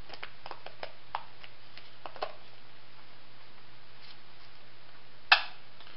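Light clicks and taps of a plastic Honda ATC 110 taillight lens and housing being handled, with one sharp click about five seconds in. A faint steady low hum sits underneath.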